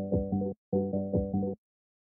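Background music: two short bursts of synthesizer chords, each under a second long, with a full cut to silence in between and again from about a second and a half in.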